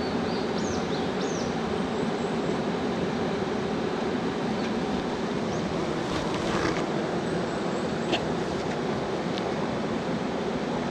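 Steady rush of river current flowing over stones in a shallow mountain stream, with a few short high chirps about a second in.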